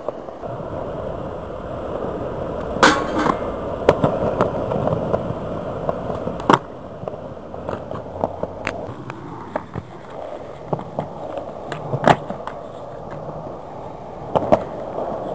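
Skateboard wheels rolling over rough concrete, a steady grinding rumble, broken by several sharp clacks of the board striking the ground.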